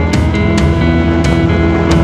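Background music: sustained chords over a steady beat of sharp percussion hits about every half second.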